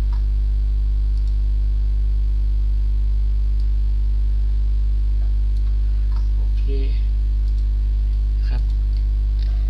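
Steady electrical mains hum with a ladder of overtones on the recording, with a few faint clicks about a second in, around two-thirds of the way through and near the end.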